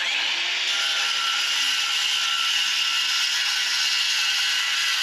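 Cordless compact circular saw cutting through 2-inch PVC pipe: a loud, steady, high-pitched whine with a rasping cut, spinning up as it starts.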